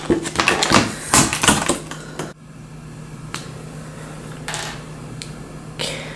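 Clear plastic packaging sleeve crinkling and crackling as a pen is pulled out of it: a dense run of crackles that stops sharply about two seconds in, followed by a few isolated soft clicks of handling.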